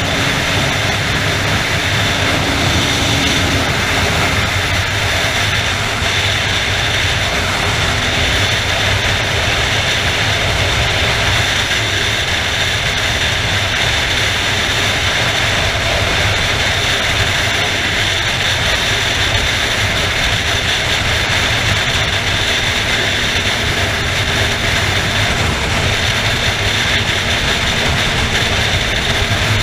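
Motorcycle cruising at steady highway speed: a constant roar of wind over the bike-mounted camera's microphone, with the engine's drone underneath.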